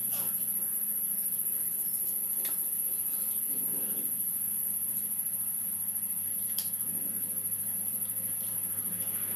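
Crickets chirring steadily in the background, with a few faint sharp snips and clicks of scissors cutting snakehead fish flesh.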